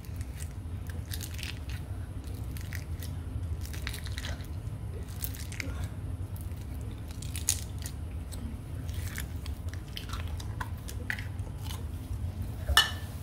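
Floam block slime worked by fingers in a small plastic jar: soft, scattered crunching and squishing as the foam blocks are pressed into the slime, over a steady low hum. One louder click near the end as the slime is lifted out of the jar.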